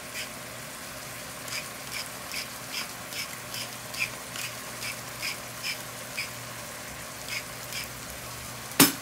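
Pepper mill being twisted over a pan of frying ground beef: a dry click with each turn, about two or three a second, over a faint steady sizzle. One sharp knock near the end.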